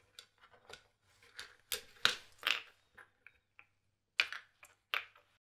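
Hollow plastic planet halves being worked and snapped off a plastic sprue frame: a string of irregular clicks and snaps, with sharper ones about two seconds in and again near the end.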